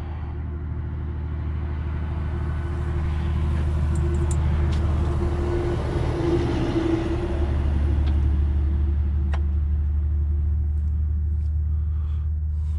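Cat E70B excavator's diesel engine running with a steady low drone, growing louder over the first few seconds. A higher hiss and hum are strongest around the middle as the machine is worked.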